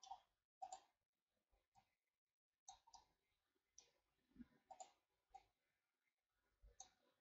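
Near silence broken by faint, scattered computer mouse clicks and key presses, about ten in all.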